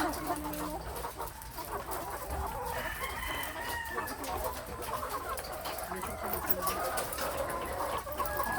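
A flock of chickens clucking steadily, with a rooster crowing once, a long call starting about two and a half seconds in.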